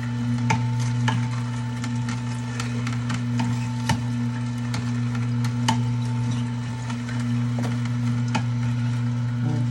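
Electric juicer motor running with a steady low hum, with frequent irregular crackles and snaps as pieces of produce are crushed.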